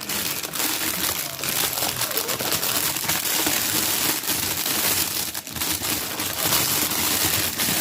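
Packaging crinkling and rustling continuously as artificial gold eucalyptus stems are handled and unwrapped.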